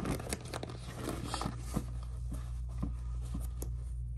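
A crystal-studded knit sneaker being picked up off a shelf and turned over by hand: irregular small clicks, scrapes and rustles, the sharpest right at the start. A steady low hum runs underneath.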